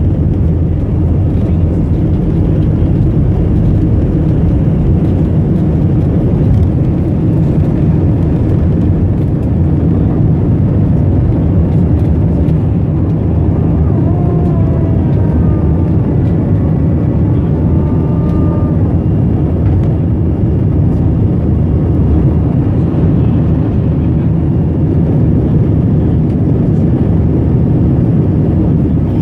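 Jet airliner cabin noise at a window seat during the takeoff roll, liftoff and initial climb: the engines and rushing air make a loud, steady roar that is strongest in the bass. Around liftoff, about halfway through, faint wavering tones rise above the roar for a few seconds.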